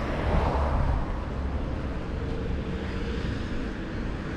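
Car traffic passing on a road: a steady noise with a heavy low rumble.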